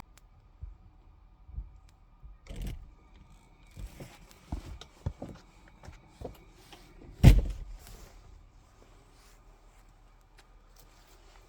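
A scattering of small knocks and clicks, with one louder knock about seven seconds in.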